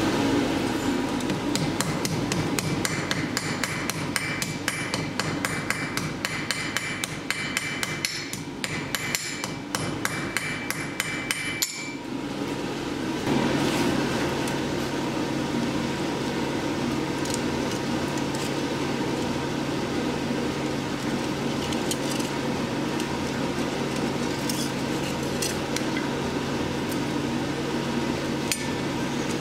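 Blacksmith's hammer striking steel on an anvil in quick, even blows, about three a second. About twelve seconds in the hammering stops, leaving a steady low hum with only an occasional tap.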